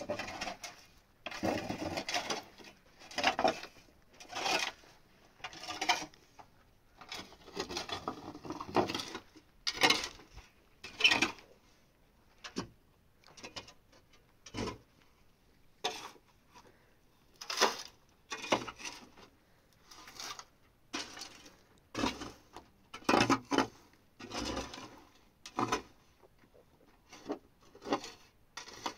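Shovel digging into dry, crumbly earth: a run of short scraping strokes, roughly one every second, uneven in strength.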